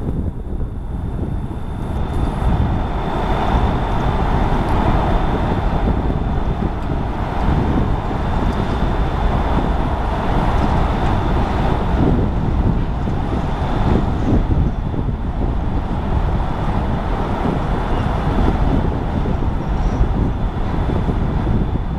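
Wind buffeting the microphone over a steady rumble of machinery and traffic, with a faint high whine held throughout.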